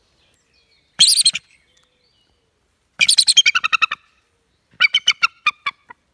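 Juvenile bald eagle giving its classic high-pitched chattering call in three bouts: a short burst about a second in, a fast run of notes falling in pitch around three seconds in, and a slower string of notes near the end.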